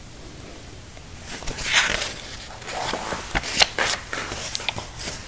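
Handling noise from a picture book being moved about close to the microphone: paper rustling and an irregular run of soft knocks and clicks, starting about a second in.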